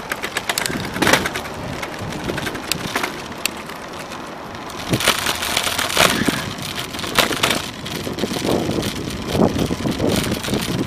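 Wind rushing over the microphone of a moving bicycle, with clicks, knocks and rattles from the bike over the pavement and swells of noise as it turns.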